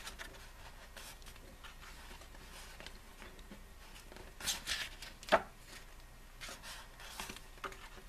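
Pages of an album photobook being turned and smoothed by hand: soft paper rustling, louder about four and a half seconds in, with a single sharp tap just after, the loudest sound.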